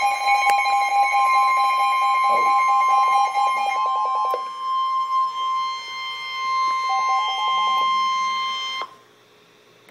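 Emergency Alert System attention tone sounding for a tornado warning: a loud, steady electronic tone with a second, pulsing beep over it for the first half. The tone cuts off suddenly about nine seconds in, just before the spoken warning.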